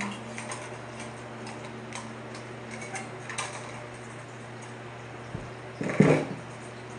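Light scattered clicks and clinks of stainless steel dish-rack parts being handled and fitted together, with a thud and then a louder knock about six seconds in.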